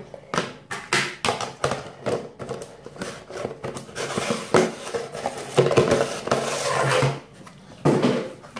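Plastic food container and its snap-on lid handled and pressed shut by hand on a countertop: a run of plastic clicks and knocks with rubbing, densest in the second half, and another clatter near the end.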